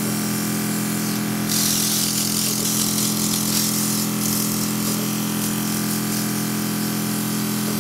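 Luminess Air airbrush compressor humming steadily, with the airbrush gun hissing as it sprays makeup from about one and a half seconds in, strongest for a couple of seconds and then fainter. The trigger is pulled back hard, so a lot of makeup comes out.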